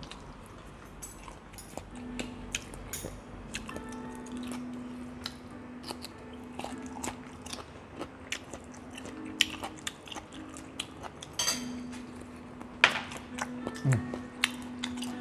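People eating: chewing and biting food, with many small clicks of spoons and chopsticks against bowls. Faint background music with a steady low note runs underneath from about two seconds in.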